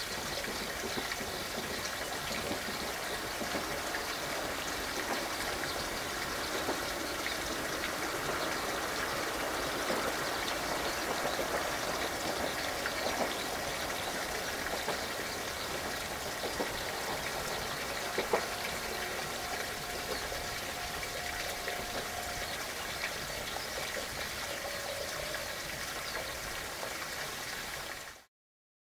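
Steady outdoor background hiss, even and without rhythm, with a single faint click about 18 seconds in and a faint held tone shortly after; it cuts off suddenly near the end.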